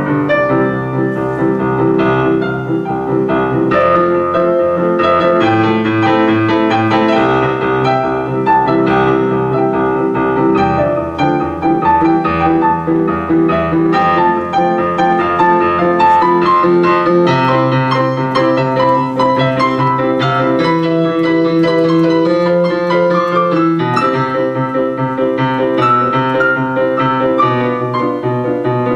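Improvised piano playing, with a low bass line that changes note every second or two under chords and a higher melody.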